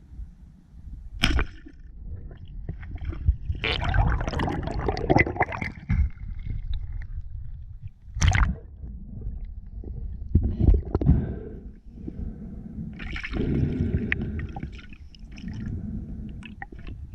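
Water sloshing and gurgling in irregular surges, with several sharp splashes, as a spearfisher moves at the surface or underwater.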